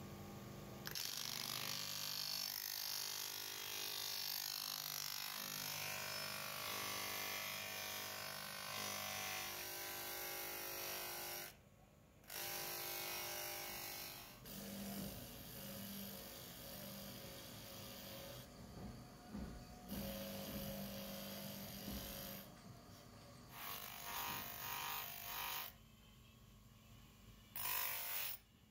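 Electric bench motor running a buffing wheel, with a metal juicer part pressed against it: a steady motor hum under a hissing rub of the part on the wheel. The sound cuts off and comes back abruptly several times.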